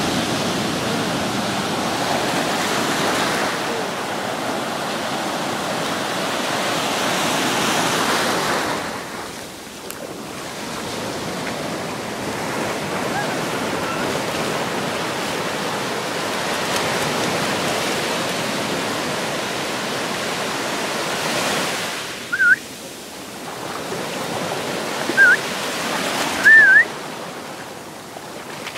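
Ocean surf washing up a sandy beach, the rush of foam swelling and easing with each wave. Near the end come three short high-pitched squeals.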